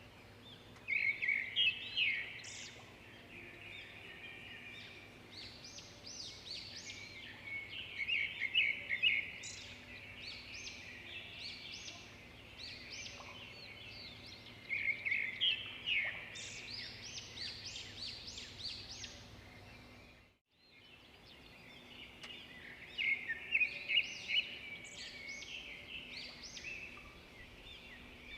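Small birds chirping and twittering in quick bursts of high notes over a faint steady background hum, with a brief cut to silence about two-thirds of the way through.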